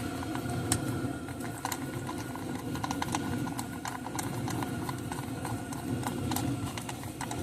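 Socket ratchet clicking in quick irregular runs as the ignition-coil hold-down bolts are run back in with a 10 mm socket, over a steady background hum.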